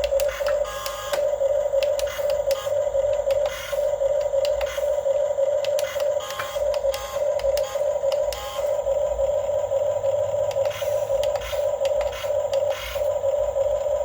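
Huina 1550 radio-controlled model excavator's electric motors and gearboxes whining steadily at one high pitch, with repeated clicks and rattles from its tracks and gearing.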